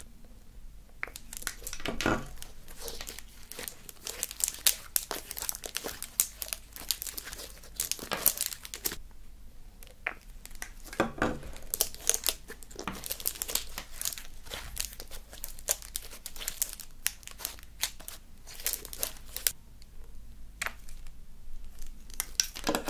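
Freshly made black magnetic putty slime, airy and still a little sticky, being kneaded and squeezed by hand, giving many small irregular crackles and sticky pops as it pulls apart.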